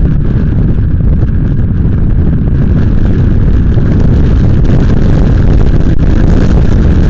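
Heavy wind buffeting on the microphone of a camera on a moving motorcycle, with vehicle noise beneath it; loud and steady throughout.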